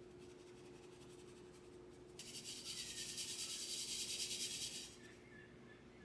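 A rubbing, scraping sound that starts a couple of seconds in and lasts about two and a half seconds.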